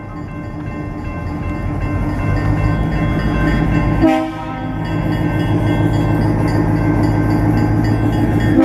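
EMD SW900 switcher locomotive sounding its horn at a road grade crossing. The horn's chord is softer at first and stronger toward the end, over a diesel engine rumble that grows louder as the locomotive draws near. There is a brief break about four seconds in.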